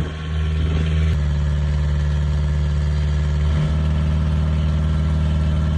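Nissan Hardbody's KA24E four-cylinder engine running steadily as the truck is driven, heard from inside the cab. Its note holds one pitch, with a small shift about a second in and again past three and a half seconds.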